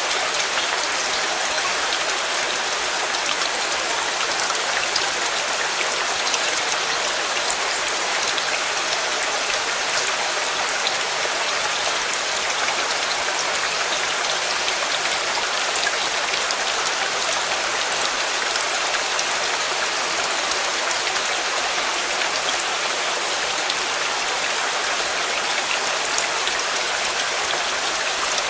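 Steady rain falling, a dense even hiss of drops with fine individual patters on surfaces.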